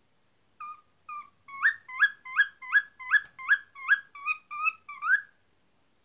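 Cockatiel whistling a quick run of about a dozen short chirping notes, about two to three a second, several of them sweeping upward in pitch. The calls start about half a second in and stop about a second before the end.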